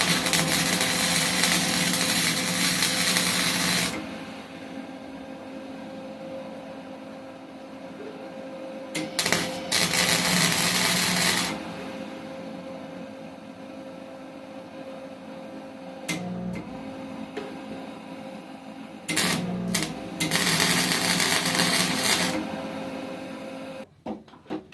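Electric welding on steel: three runs of steady arc crackle, about five, two and a half and three seconds long, with a steady electrical hum from the welder in between.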